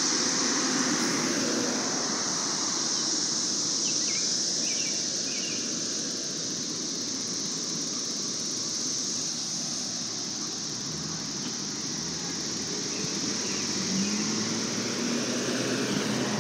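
Wind and road noise of a bicycle ride along a city street, with car traffic, under a steady high-pitched drone. Near the end a low engine-like tone rises slightly.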